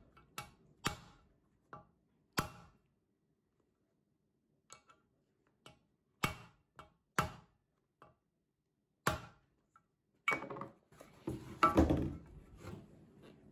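A sealed ball bearing being tapped into a cast iron washing machine bearing holder with a mallet: a dozen or so sharp metallic knocks at uneven intervals, with a quiet pause in the middle. Near the end comes a louder stretch of clatter and handling noise.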